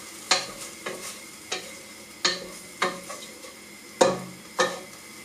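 Onions sizzling as they fry in oil in a saucepan, stirred with a wooden spoon that scrapes and knocks against the pan in regular strokes, about three every two seconds, the loudest about four seconds in.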